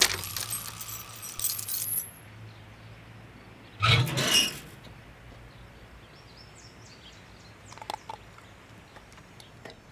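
A metal garden gate rattling briefly against its lock, about four seconds in, after the music fades out.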